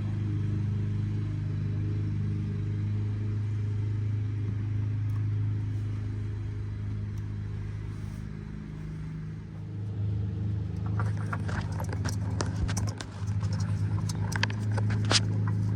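A steady low mechanical hum. In the last few seconds it is joined by a run of light clicks and knocks, typical of parts being handled during the oil-filter change.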